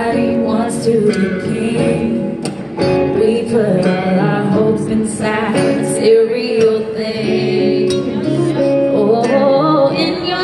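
Live electric guitar solo played on a hollow-body electric guitar over the band's backing, with notes that bend in pitch.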